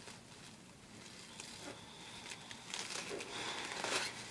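Crinkling and rustling as a new book and its wrapping are handled, faint at first and building to louder crinkles near the end.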